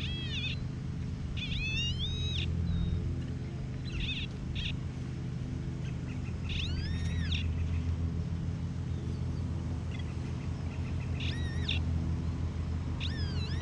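Steady low rumble, like an idling engine or traffic, under a bird calling about six times. Each call is a short note that rises and falls in pitch.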